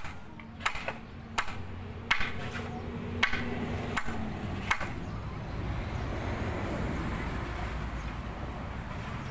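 Hammer knocking on the wooden formwork of a concrete column, a sharp knock about every 0.7 s for the first five seconds, then a low steady rumble.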